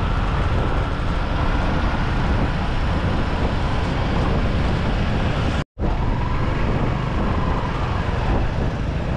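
Wind rush and road noise while riding a motorcycle, a steady heavy rumble on the microphone. The sound drops out completely for a split second a little over halfway through, then the same riding noise carries on.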